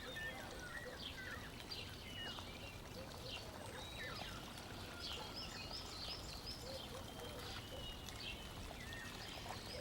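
Faint birds chirping over a low, steady background hiss: scattered short high chirps and little gliding calls, with a quick run of repeated chirps midway.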